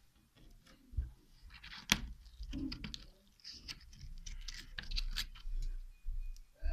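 Slime being squeezed and poked by hand: irregular squishing with small clicks and pops, one sharper click about two seconds in.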